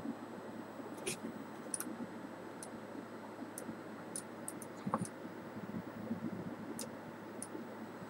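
Faint, irregular small clicks from fingers handling a trading card held up close, about ten over the stretch, over a steady background hiss.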